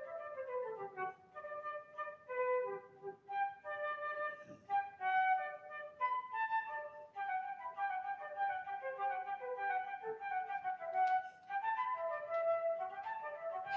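Concert flute playing a flowing melody of quick runs of notes, with a falling run in the first second and a long climbing run near the end.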